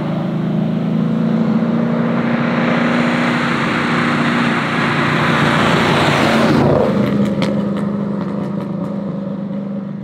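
Marciano 268A's 2.6-litre eight-cylinder engine running as the car drives up and passes, growing louder and then dropping in pitch about two-thirds of the way through. A run of sharp crackles follows the pass while the engine note carries on.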